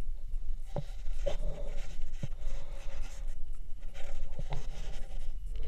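Scuffs and scrapes of a hiker's shoes and hands on rock and rope while climbing down, with a few sharp knocks, over a steady low rumble of handling noise on a body-worn action camera.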